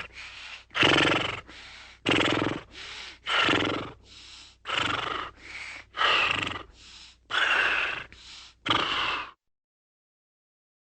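Horse calling in a rhythmic series of about eight loud, strained cries, each followed by a quieter sound, roughly one every 1.2 seconds. The calls stop about nine seconds in.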